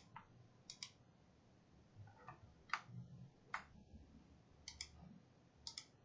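Faint computer mouse button clicks, about ten of them, single and in quick pairs, over near silence.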